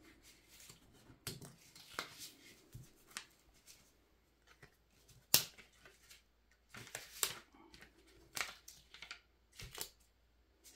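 Soft rustling and scattered small clicks as a paper adhesive label is peeled from its backing sheet and pressed down with the fingers, with one sharper tick about five seconds in.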